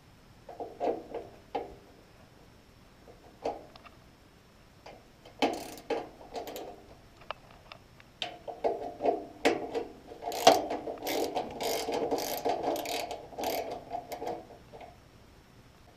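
Quarter-inch socket ratchet backing out the sheet-metal screw on a blower motor's run-capacitor mounting strap: a few short bursts of ratchet clicking, then a longer run of fast clicking from about eight seconds in until near the end.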